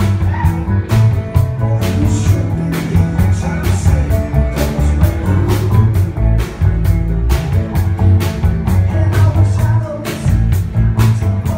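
Live band playing an upbeat blues-rock tune on electric bass, electric and acoustic guitars and drum kit, with a steady beat and a strong bass line.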